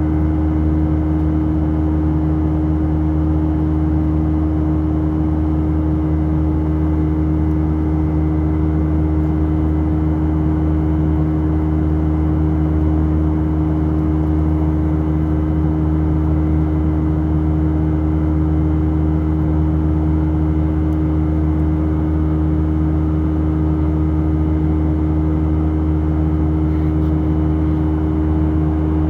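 Steady cabin drone of an Airbus A319 airliner in flight, heard from inside the cabin: engine and airflow noise with a few low, steady hums held throughout.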